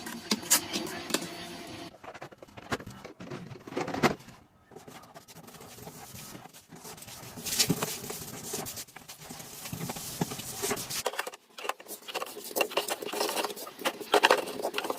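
Irregular taps, clicks and knocks with rustling as food containers and packaging are handled and set down while stocking a fridge.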